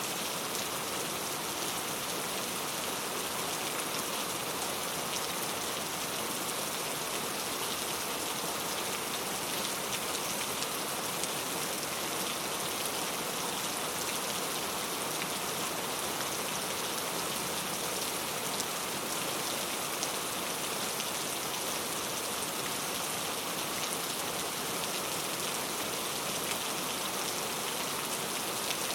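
Steady rain falling, an even hiss of many drops hitting a surface without pause.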